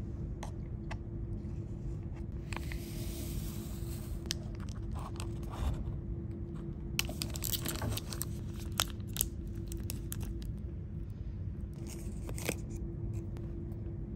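Plastic wrapper of a Bounty chocolate bar being torn open and crinkled in three rustling spells, with small clicks and taps between them, over a steady low hum.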